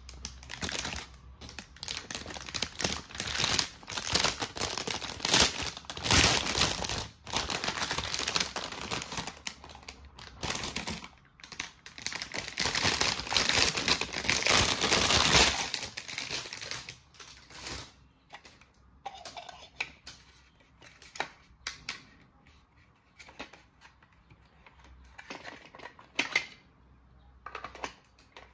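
Toy packaging being handled and opened: dense crinkling and rustling with quick clicks for about the first half. After that come scattered separate clicks and taps of small toy pieces being handled.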